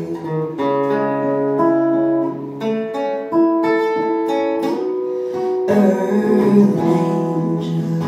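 Acoustic guitar played on its own as an instrumental break: a picked melody of ringing single notes over held chords, then fuller strummed chords from about six seconds in.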